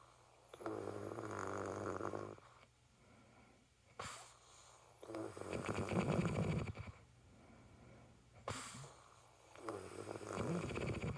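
A woman snoring in her sleep: three long snores about four seconds apart, the middle one the loudest.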